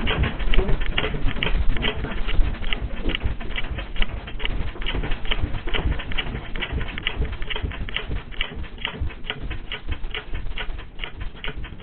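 Loose household objects rattling and clicking rapidly and irregularly as the earthquake shakes them, over a low rumble, dying down toward the end.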